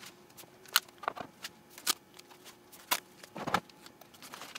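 Wooden fence-picket boards with double-sided tape being handled and pressed down on a CNC router bed: irregular sharp clicks, taps and rustles, with a duller knock about three and a half seconds in.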